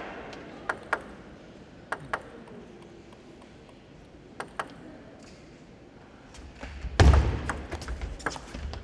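Table tennis ball ticking in light pairs a few times while the point is readied. About seven seconds in comes a heavy thud, then a quick run of ball clicks off bats and table as a rally is played.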